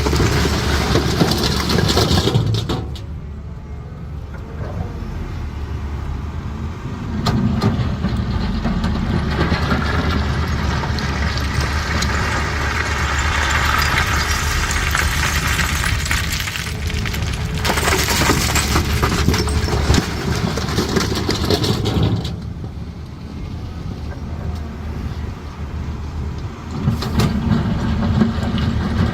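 Caterpillar 320D hydraulic excavator's six-cylinder diesel engine running as the machine works, its sound swelling and easing several times, loud for long stretches and dropping back twice in between.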